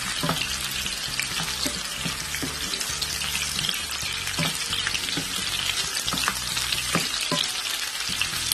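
Sliced onion rings sizzling and crackling in hot oil in a nonstick frying pan while being lightly sautéed, stirred with a wooden spatula that knocks and scrapes against the pan every second or so.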